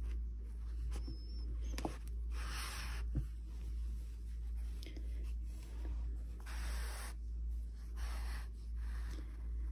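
Black acrylic yarn being pulled by hand through plush crochet fabric while embroidering: several brief rasping swishes a second or two apart, with a couple of light handling taps in the first few seconds, over a steady low hum.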